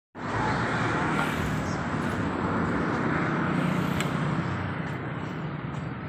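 A steady low mechanical hum and rumble, with one faint click about four seconds in.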